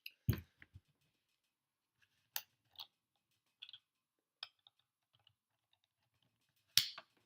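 A handful of sharp clicks and knocks as a Milwaukee M12 cordless jigsaw is handled, with the loudest about a third of a second in and another near the end.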